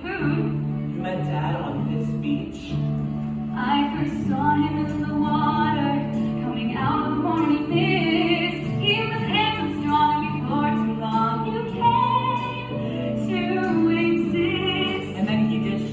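A voice singing a musical-theatre song over instrumental accompaniment with steady low held notes.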